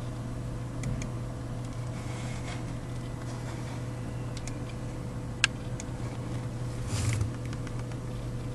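Steady low electrical hum with a faint higher tone, broken by a few faint clicks and one sharp click about five and a half seconds in.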